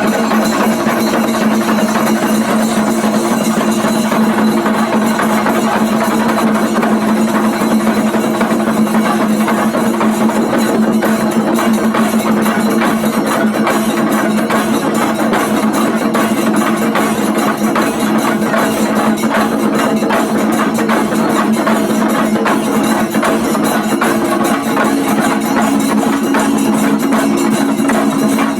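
Singari melam drum ensemble playing a fast, dense, unbroken beat, with a steady held tone sounding under the drumming.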